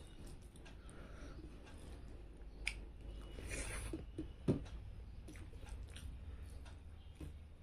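Someone eating rice and fish curry by hand from a steel plate: chewing, and fingers mixing food on the plate. There are scattered small clicks and a sharp knock about four and a half seconds in, over a low steady hum.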